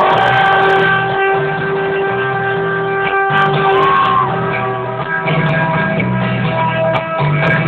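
A live rock band playing, with guitar and sustained held notes over a busy, repeating bass line, recorded from within the concert crowd.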